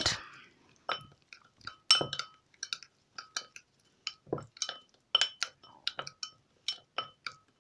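Metal spoon clinking and scraping against a white ceramic bowl while stirring a thick, damp paste of ground powder, cinnamon and water: many short, ringing clinks, irregular, about three a second.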